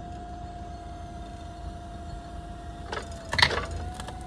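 Propane Yale forklift running with a steady whine and low rumble while its forks lift against a wooden fence. About three seconds in, a short burst of sharp cracks and snaps as the fence boards break loose from the posts.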